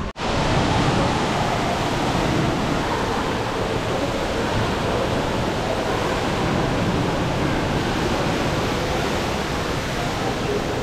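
Indoor waterfall of the Rain Oculus pouring from the skylight bowl into the pool below: a steady, loud rush of falling and splashing water. It starts just after a brief drop-out at the very beginning.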